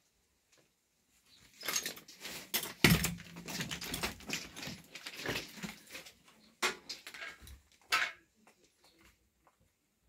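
Objects being handled and moved about at floor level: a busy run of knocks, clicks and clatter with one loud thump about three seconds in, tailing off near the end.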